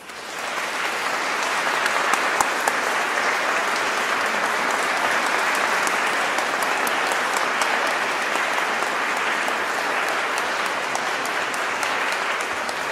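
Audience applauding: many people clapping, swelling within the first second and then holding steady.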